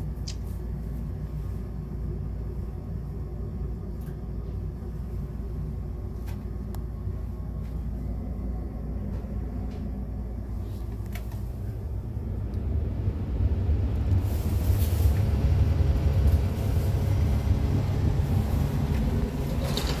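Rheem furnace starting up: a steady low hum with a few light clicks, then about thirteen seconds in it grows louder, with a deeper rumble and a rushing of air as it ramps up.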